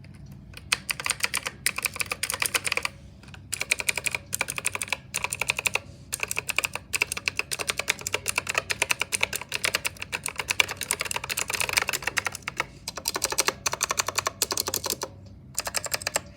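Gigaware K28 mechanical keyboard being typed on fast, its keys clicking in rapid runs with a few brief pauses between them.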